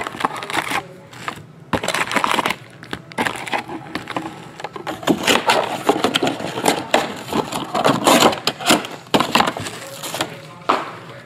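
Foil trading-card packs crinkling and rustling as they are handled, with knocks from a cardboard box, in irregular crackly bursts.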